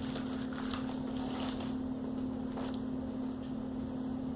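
A steady low electrical hum, with faint rustles and a few light taps as a replacement laptop screen panel and its packaging are handled.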